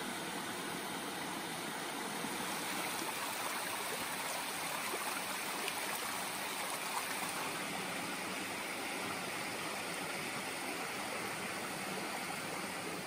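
Small creek running over sandstone ledges into a pool: a steady rush of trickling, splashing water.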